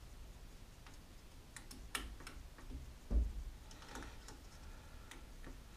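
Scattered light clicks and ticks from small parts being handled by hand on the X-Carve CNC machine's Z-axis carriage, with one duller knock about three seconds in.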